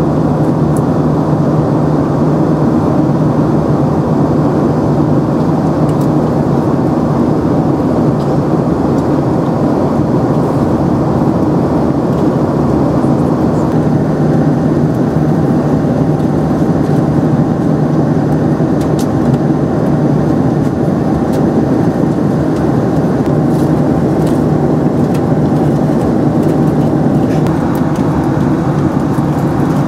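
Steady cabin noise of a Boeing 767-300ER in cruise: an even roar of the turbofan engines and airflow, with a steady low hum.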